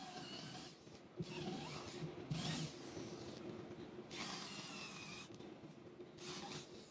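Corded electric drill boring into a wooden tabletop, in several bursts, its motor whine rising and falling as the bit cuts.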